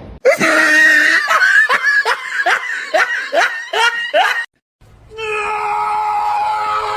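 A rapid run of laughing, high pitched bursts each rising quickly, breaking off suddenly about four and a half seconds in; then one long, steady, high cry held to the end.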